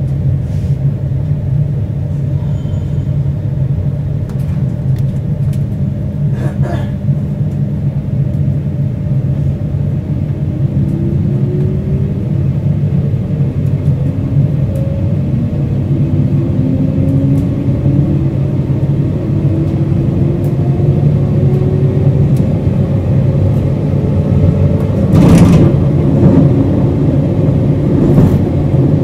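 JR Hokkaido 721 series 0-subseries electric multiple unit, thyristor phase-controlled, heard from inside the car running with a steady rumble. From about a third of the way in, a motor hum rises slowly in pitch as the train picks up speed, and a brief louder rush comes near the end.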